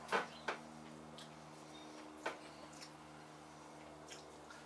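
A fork clicking against a plate: two sharp clinks right at the start and another a couple of seconds later, over a faint steady hum.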